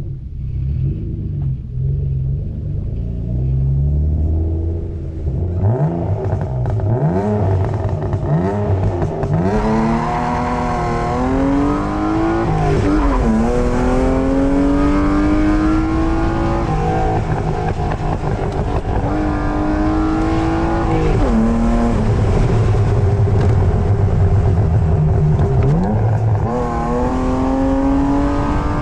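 BMW E36 323i's M52B25 2.5-litre inline-six engine running at a low steady rumble, then accelerating hard through the gears: the pitch climbs and drops back at each of several upshifts.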